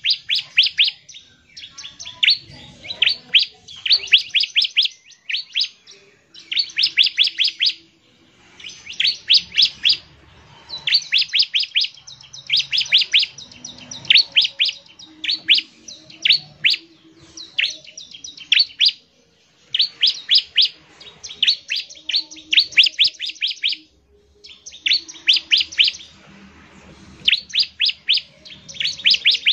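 Bar-winged prinia (ciblek) singing: repeated phrases of rapid, sharp high notes, each phrase about a second long, with short pauses between them.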